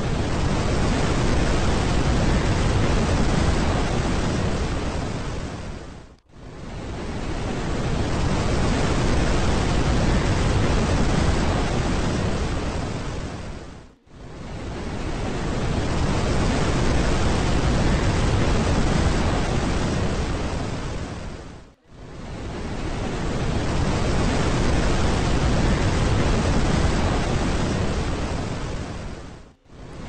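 Steady rushing noise with no distinct tones or clicks. It fades out to a brief silence and back in about every eight seconds.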